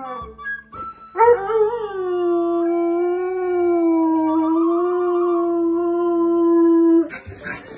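A dog howling: one long howl that starts about a second in, rises briefly, then holds a steady pitch for about six seconds before breaking off abruptly.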